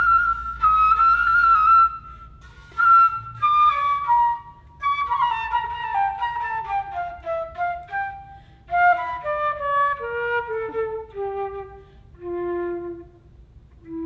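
Concert flute playing alone: long held high notes at first, then quick runs that step down into the low register, ending on a held low note.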